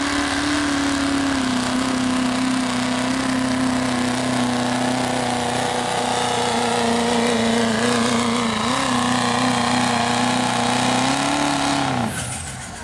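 GMC pickup's Duramax V8 turbodiesel held at high revs under full load, pulling a truck-pull sled. The engine note stays steady and high, then drops off sharply near the end as the pull ends and the throttle comes off.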